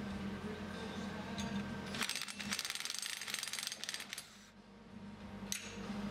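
Cordless impact wrench hammering on a nut of a Schulte Series 4 rotary-cutter slip clutch: a rapid metallic rattle of impacts for about two seconds, starting about two seconds in. A single sharp click follows near the end.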